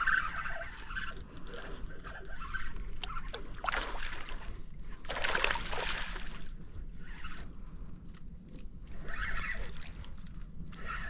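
Water splashing and sloshing in irregular bursts, the loudest lasting about a second a little past the middle.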